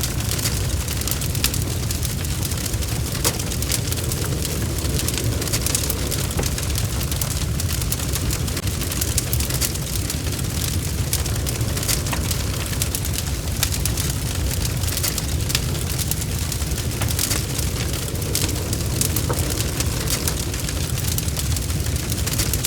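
Wood fire burning in a fireplace: a steady low rush with frequent small crackles and pops throughout.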